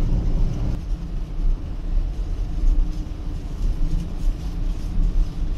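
A car driving along a highway on a fresh intermediate asphalt layer: a steady low rumble of engine and tyre noise.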